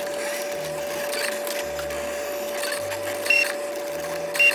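Brother ScanNCut SDX1200 cutting machine running a cut: a steady motor hum, with the carriage and mat motors changing note every fraction of a second as the blade follows the design. Two short, louder high chirps come about three and four seconds in.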